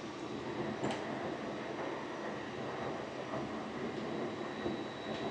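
Steady hangar background noise, with a single sharp metallic click about a second in from a hand tool on the engine's oil filter housing.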